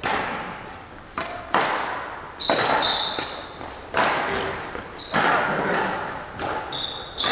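Badminton rally: rackets smacking a shuttlecock back and forth, sharp strikes about once a second. Court shoes squeak briefly on the hall floor between shots, and every sound echoes in the large hall.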